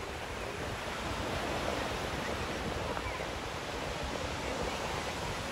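Ocean surf washing onto a beach, a steady rush of small breaking waves, with wind buffeting the microphone.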